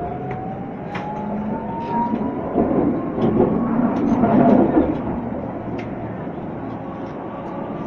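Tatra T3 tram heard from inside the passenger saloon while accelerating: the traction motor whine rises steadily in pitch, over wheel rumble and scattered clicks from the rails. The rumble is loudest about halfway through.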